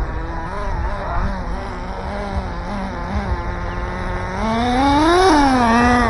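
Electric RC race car's motor whining, its pitch wavering up and down with the throttle, then climbing to a peak about five seconds in and falling away, over a low rough rumble.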